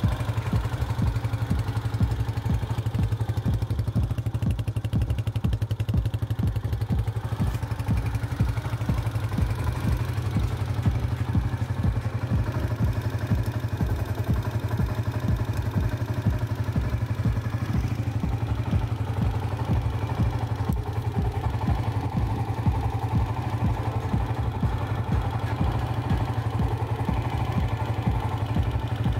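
Honda CG125's freshly restored single-cylinder four-stroke engine idling steadily with an even beat.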